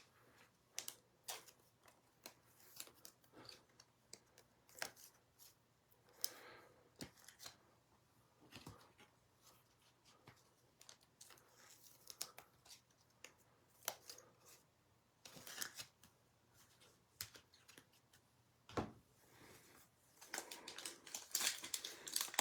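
Faint handling of trading cards and their packaging: scattered soft clicks and short rustles, then a denser crinkling of a pack wrapper near the end as the next pack is opened.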